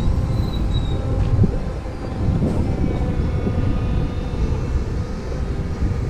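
Steady low rumble of wind on the microphone and tyre noise from an Inmotion V12HT electric unicycle rolling along a paved pavement, with a faint steady whine above it.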